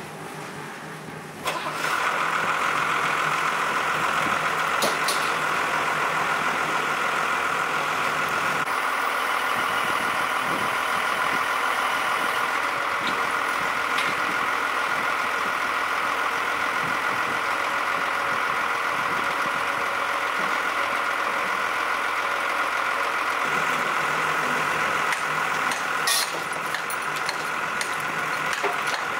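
A machine's motor starts up about a second and a half in and runs steadily, with a few brief sharp clicks over it.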